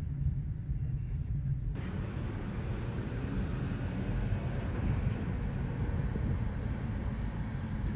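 Steady low rumble of road traffic. About two seconds in, the sound changes abruptly to a brighter, hissier rumble.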